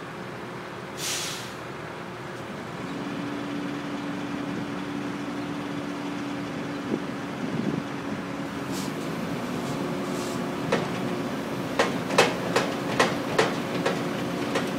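Hydraulic excavator running as it works its arm over precast concrete units, with a short hiss about a second in and a steady whine joining about three seconds in. Near the end comes a quick run of about half a dozen sharp knocks.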